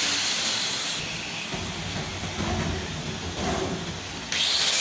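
Electric angle grinder running off the work: about a second in its sound falls quieter and the high hiss drops away. Near the end it jumps suddenly back to a loud grinding hiss as it bites the steel of an ice-block can being repaired.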